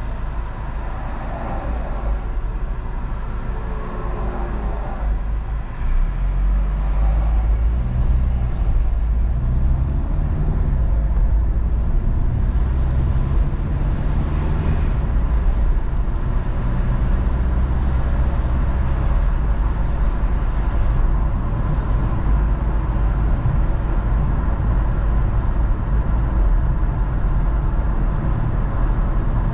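A car being driven, a steady low rumble of engine and road noise that gets louder about six seconds in and then holds.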